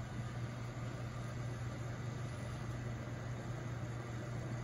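A machine running steadily: a low hum with an even hiss over it.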